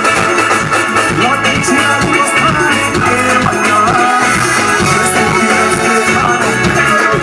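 Live soca band music in an instrumental passage, a steelpan melody over a steady beat.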